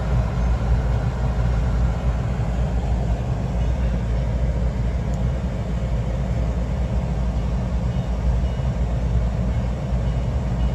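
Steady low rumble inside the cabin of a stopped car, with no distinct events.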